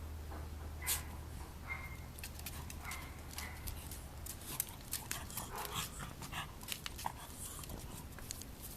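A pug puppy and a Shiba Inu play-wrestling: a scuffle of many quick clicks and snaps with a few short, high whines.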